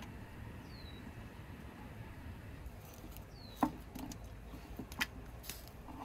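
Whole onions dropped one at a time from a wooden bowl into a large pot of simmering broth, landing with short sharp plops, three of them in the second half over a low steady background.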